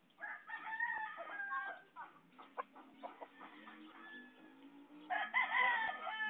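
Gamecock roosters crowing twice: a crow a moment in lasting about a second and a half, and another about five seconds in that falls in pitch at its end. Scattered short clicks come between the two crows.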